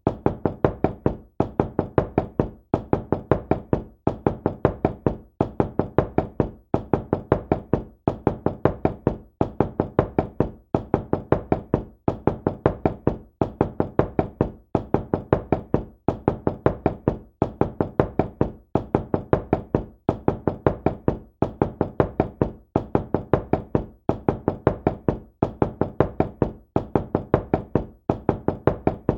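Knuckles knocking on a door, over and over in quick groups of about four or five raps with a short pause between groups, at an even, unchanging pace.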